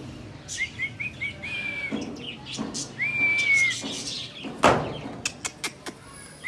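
Small birds chirping: a quick run of short rising chirps, then two longer held notes. A short rushing noise comes about two-thirds of the way through, and a few sharp clicks near the end.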